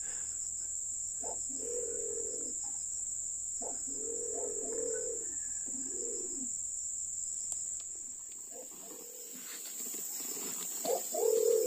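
Steady high-pitched insect drone in the forest, with a pigeon giving low cooing notes about five times, the last near the end the loudest.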